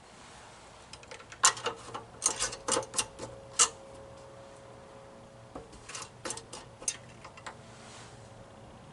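A run of sharp clicks and light knocks in two clusters, the first about a second and a half in and the second about six seconds in, from handling the oil bottle, fill cap and dipstick while topping up a small mower engine with fresh oil.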